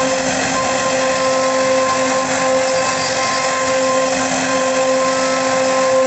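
CNC wood router's spindle running steadily while its bit carves a relief into a wooden panel: a constant pitched hum over the hiss of the cut.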